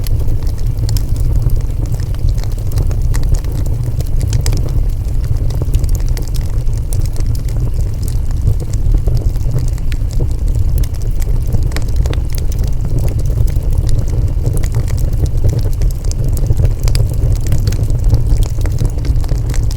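Wood fire burning: a steady low roar with many small, sharp crackles and pops scattered irregularly.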